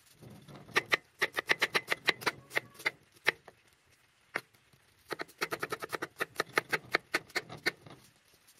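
Freshly sharpened kitchen knife dicing an onion on a wooden cutting board: quick knife strikes on the board, about five or six a second, in two runs with a pause of about two seconds between them.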